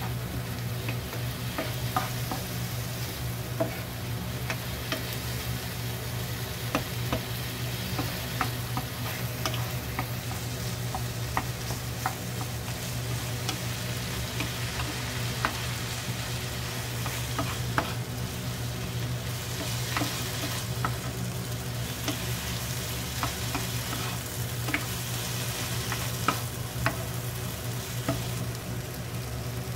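Tomatoes, scallions and scrambled egg sizzling in a nonstick frying pan as they are stir-fried with a wooden spatula. Scattered light clicks and scrapes of the spatula against the pan sound over the steady sizzle, with a steady low hum underneath.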